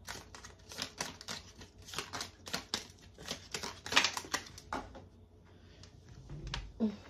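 Oracle cards being handled and set down on a glass tabletop: a quick run of light clicks and taps, about four or five a second, thinning out to a few after about five seconds.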